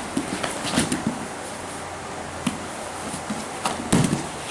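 Two Brazilian jiu-jitsu grapplers in gis scrambling on foam mats. The gi fabric rustles and scrapes, with irregular thumps and slaps of bodies and hands on the mat, the loudest about a second in and near the end.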